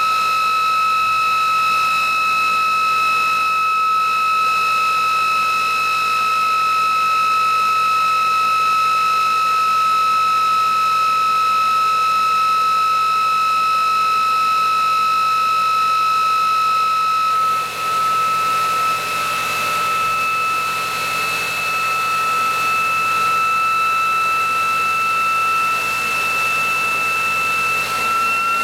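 Prototype ReGenX generator test rig, an electric prime-mover motor spinning the generator at high speed, giving a steady high-pitched whine. About two-thirds of the way in, the generator's battery-charging load is switched in: the whine briefly dips and changes tone, then slowly rises in pitch.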